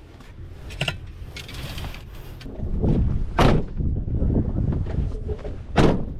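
Wind buffeting the microphone, with a few sharp knocks or clacks; the two loudest come about three and a half seconds in and near the end.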